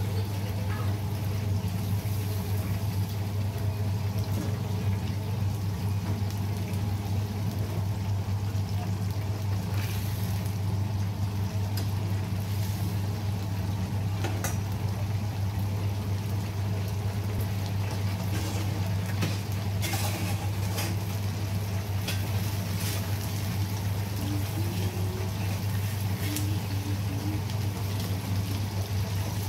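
Breaded chicken cutlets deep-frying in a vat of hot oil: a steady sizzling hiss with a few sharp clicks, over a constant low hum.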